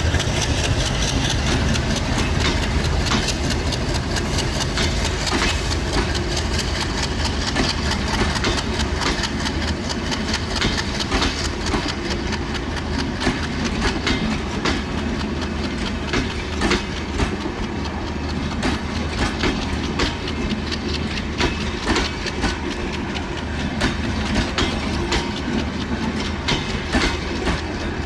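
Passenger coaches of a departing Bangladesh Railway intercity train rolling past, their wheels clicking over the rail joints above a steady low engine hum. The clicks come sharper and more often in the second half.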